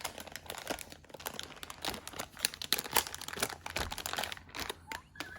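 Packaging crinkling and rustling in irregular crackles as a toy is unboxed.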